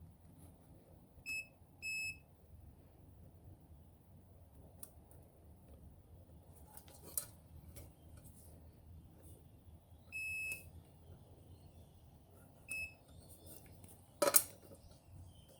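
Multimeter continuity tester beeping: two short beeps, a longer beep later on, then another short one, each as the probes close a circuit across the freshly filed fuse contacts, signalling a good connection. A sharp click near the end.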